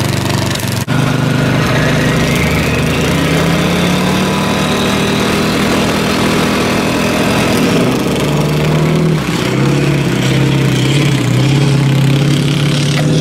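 A lawn tractor engine and a Ford 7.3 Powerstroke V8 turbodiesel pickup running together, then revving as they pull away in a drag race. The engine pitch climbs over the first few seconds, dips briefly, and climbs again near the end.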